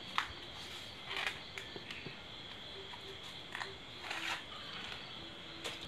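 Leaves rustling and crinkling in the hands as they are folded into a wrapper and tied with string, in several short bursts a second or so apart.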